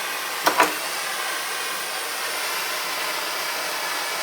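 Soldering torch burning with a steady hiss, heating a copper pipe joint for soldering. Two short knocks about half a second in.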